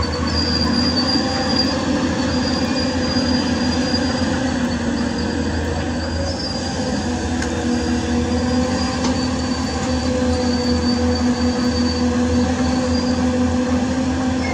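Hyundai hydraulic excavator's diesel engine running steadily under load, with a high hydraulic whine that comes and goes as the arm works.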